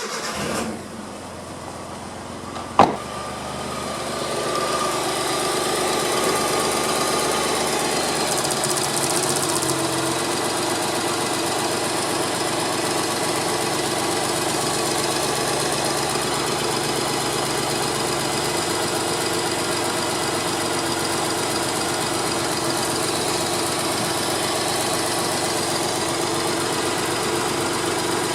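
Suzuki Cappuccino's small three-cylinder turbo engine idling. A single sharp click comes about three seconds in. After that the engine note rises a little and settles into a steady idle.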